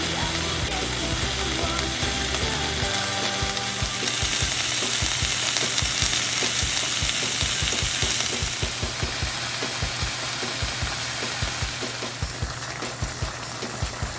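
Pork steak frying in a pan: a steady sizzle with many quick pops and clicks, the hiss loudest for a few seconds midway. Background music is faintly under it at the start.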